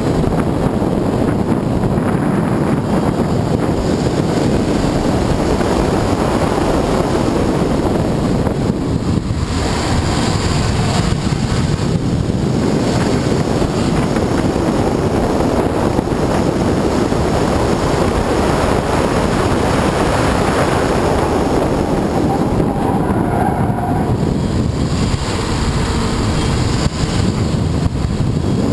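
Wind buffeting a bonnet-mounted camera's microphone over the running of a Subaru Forester 2.5XT's turbocharged flat-four engine, driven at track speed. The noise eases briefly twice, about a third of the way in and again near the end.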